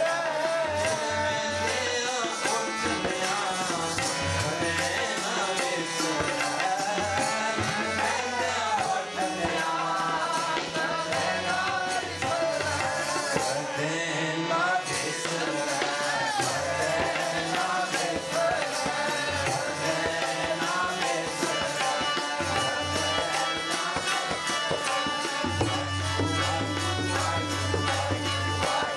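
Sikh kirtan: voices singing a devotional hymn over harmonium, with tabla keeping up a steady rhythm. A deeper low note comes in near the end.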